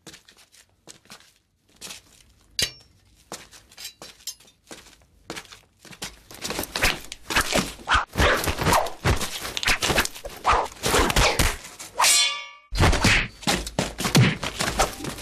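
Foley sound effects played back over a scene: scattered footsteps and knocks, building about six seconds in into a dense run of thuds and hits, with a brief ringing metallic sound near the end followed by heavier, deeper impacts.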